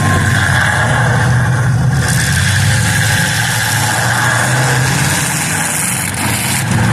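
Demolition derby car engines running loud and steady.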